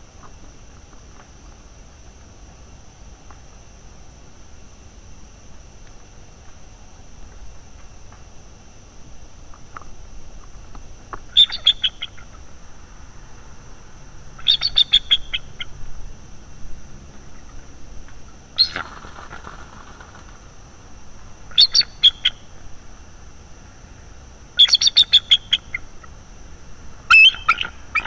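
Bald eagles giving their alarm chatter: five or six bouts of rapid, high-pitched staccato calls, starting about a third of the way in, the alert of the resident pair at a young intruder eagle in the nest tree. A brief rustle comes about two-thirds of the way through.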